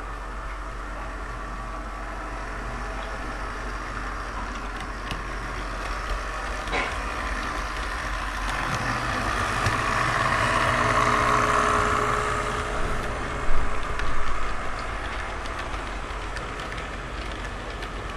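Toy electric train, a model CN GP38-2 locomotive pulling freight cars, rolling along the track with its motor running and wheels rattling on the rails. It grows louder as it passes close by about ten to twelve seconds in, with two loud clacks a little later.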